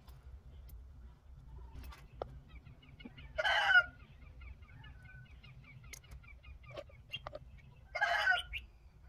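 Chickens calling: two short, loud squawks about four and a half seconds apart, with faint quick chirping between them.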